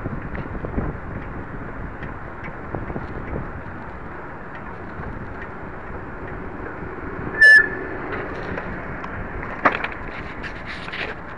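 Steady rushing noise of an electric omafiets being ridden, heard through a handlebar-mounted camera. About halfway through comes one short, loud, high-pitched ring, and near the end a run of clicks and rattles as the handlebar and camera are jostled.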